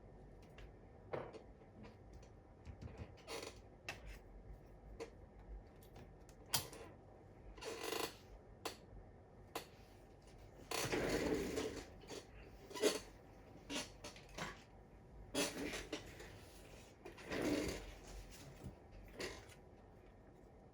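Irregular clicks, taps and light knocks of small hard parts being handled, with a few longer scraping or sliding sounds, the loudest about halfway through; typical of a laptop being reassembled by hand.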